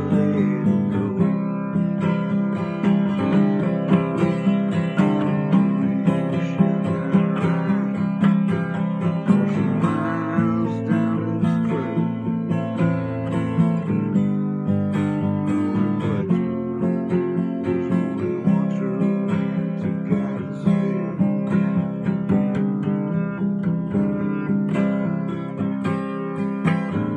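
Acoustic guitar strummed and picked in a steady rhythm, an instrumental passage of a song.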